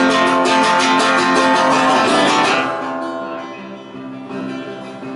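Acoustic guitar strummed fast and evenly, then about two and a half seconds in it drops to softer, quieter ringing notes. It is an instrumental passage with no singing.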